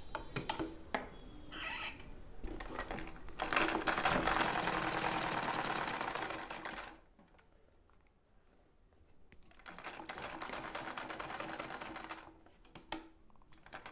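Domestic sewing machine stitching cotton fabric: a rapid, even run of needle strokes lasting about three and a half seconds, then, after a pause, a shorter and softer run. A few scattered clicks of the machine and fabric being handled come before the first run.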